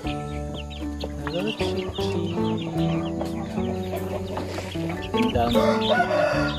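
Chickens clucking over background music of held notes and a low bass; the clucking gets louder and busier about five seconds in.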